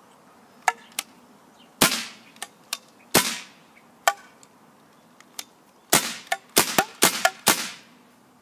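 Maverick pump-action paintball marker on CO2 firing about six times, each a sharp pop trailing off briefly, with the lighter clack of the pump being cycled between shots. The last four shots come quickly, about two a second.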